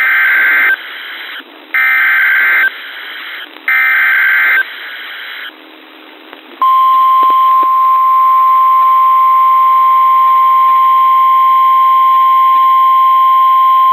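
Emergency Alert System header on NOAA Weather Radio: three short bursts of warbling SAME data tones about a second apart, then, about halfway through, the single steady 1050 Hz warning alarm tone, which announces a new warning.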